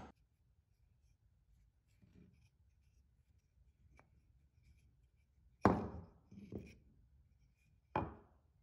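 Knocks of an old hand air pump's rod and handle pieces being handled and set down on a wooden workbench: three knocks, two close together about two-thirds of the way in and one near the end, with a faint click earlier.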